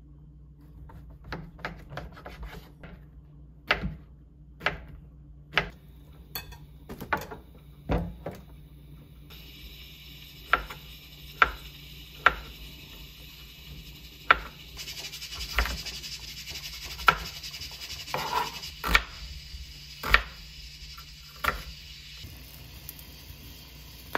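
Kitchen cooking prep: irregular clinks and knocks of utensils against dishes and pots, with a steady hiss joining about ten seconds in and growing louder a few seconds later.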